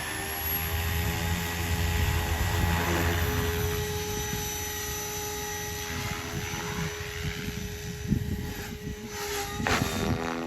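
SAB Goblin 700 Raw electric RC helicopter in flight: steady rotor beat under a constant high motor and drivetrain whine, with a few swells and a shift in pitch near the end.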